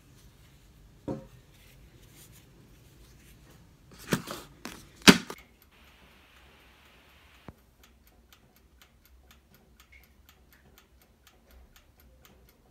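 A few sharp metallic knocks and clacks from round aluminium cake pans of sponge batter being handled on a hard surface, the loudest about five seconds in. Then a brief hiss and faint, even ticking, about three ticks a second.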